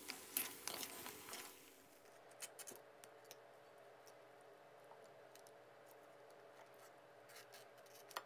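Near silence, with a few faint scrapes and clicks of stir-frying crab in a wok during the first second and a half.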